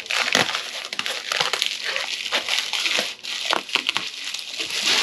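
Packing material being crinkled and crumpled by hand, a dense run of irregular crackles as wrapping and stickers are pulled off new wheels and tires.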